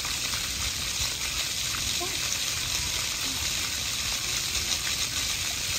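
Ground-level splash-pad fountain jets spraying and splattering onto wet brick paving: a steady hiss of falling water.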